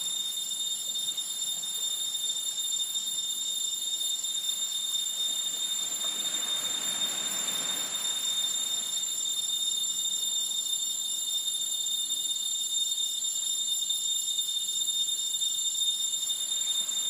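Steady high-pitched insect chorus, with a soft rush of surf swelling and fading about six to eight seconds in.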